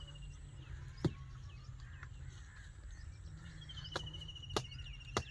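A bird calling: a trilled call that slides gently down in pitch, starting about three and a half seconds in, over a steady low hum. A few sharp clicks or knocks come through, the loudest about a second in.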